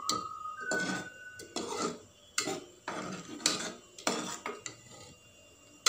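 A steel spoon stirring thick curry in a pressure cooker, scraping and clinking irregularly against the pot's metal sides and bottom. It falls quiet in the last second or so.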